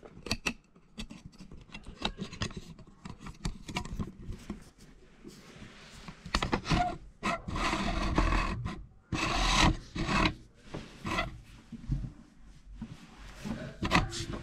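Close rustling and rubbing of clothes against the microphone as a handheld camera is shifted about, with scattered light knocks and clicks and two louder spells of rustling in the middle.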